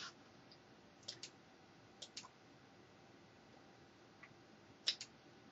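Computer mouse clicks: three pairs of quick, sharp clicks, the last pair, near the end, the loudest.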